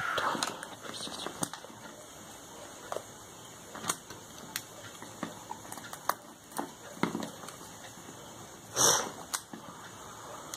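Cardboard smartphone box being handled, with scattered small clicks and taps as scissors cut through its seal sticker. A louder, short rustle comes about nine seconds in.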